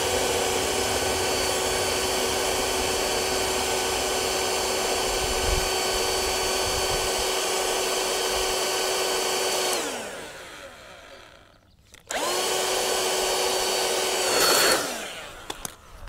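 Handheld cordless blower running at a steady high whine, held to a Chinese diesel heater's air intake pipe to push carbon out of its sooted-up exhaust. About ten seconds in it spins down to a stop, then starts again a couple of seconds later for a shorter run that surges briefly before winding down near the end.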